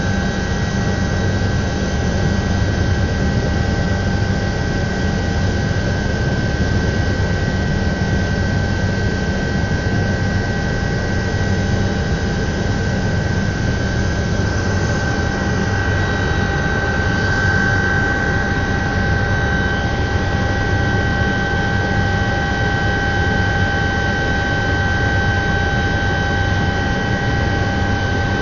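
Cabin noise of an Alouette III (IAR-316B) helicopter in level flight: the steady high whine of its Turbomeca Artouste turboshaft over the low drone of the rotor and gearbox, unchanging throughout.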